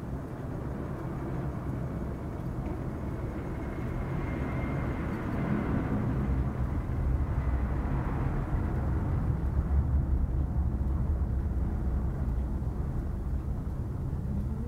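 Sleeping cat snoring over a steady low rumble, with a faint high note about four to six seconds in.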